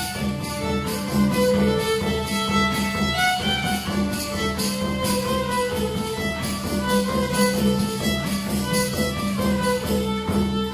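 Traditional Polish folk music from a small village band: a fiddle plays the tune over a steady low drone, with a quick, even beat.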